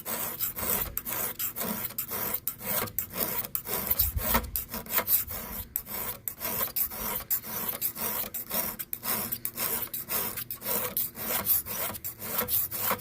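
A flat hand file rasping on a chainsaw chain in quick repeated strokes, a few a second, filing down the depth gauges (rakers) through a raker gauge.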